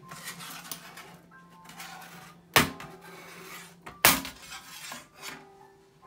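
Two sharp snaps about a second and a half apart, with light handling clatter between: the clips of a 13-inch MacBook Pro A1708's aluminium bottom case popping loose as the case is pulled off.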